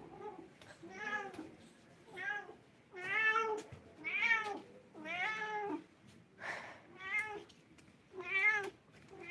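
Kitten meowing over and over, about one high-pitched meow a second, each call rising and falling in pitch.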